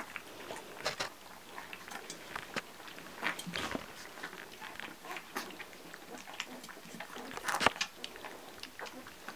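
Yellow Labrador puppies, just starting to be weaned, lapping and slurping milk from a stainless steel saucer dish: irregular wet smacks and clicks, with a louder burst a little before the end.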